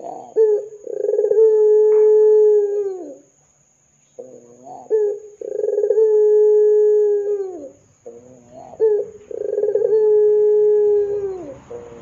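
Ringneck dove (Barbary dove, 'puter') cooing: three long coos a few seconds apart, each a short opening note followed by a long, steady coo that drops in pitch at the end.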